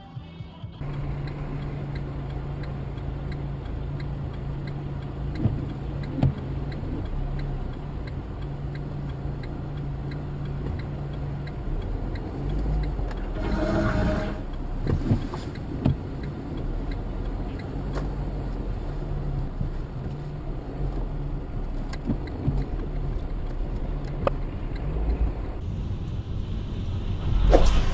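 Dashcam audio from inside a moving car: a steady low engine and road hum with scattered clicks and knocks. There is a brief louder burst about halfway through and a sharper loud burst just before the end.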